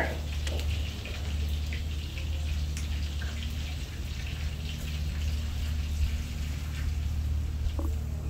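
Chicken in butter and newly added water sizzling and spitting in a pan over an open wood fire, a light scattered crackle over a steady low hum.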